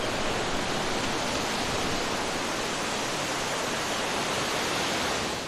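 Steady, even rushing of water noise, like heavy rain or a waterfall, with no swell or rhythm.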